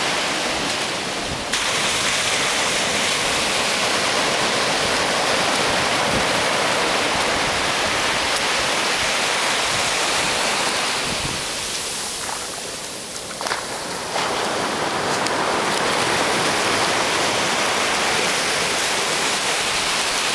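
Small surf breaking and washing up a sandy beach in a steady, hissing rush of foam. It eases for a few seconds about two-thirds of the way through, then surges back.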